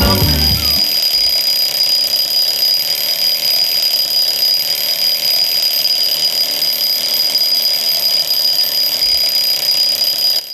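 A steady high-pitched whine holding one pitch over a hiss, cutting off abruptly at the end.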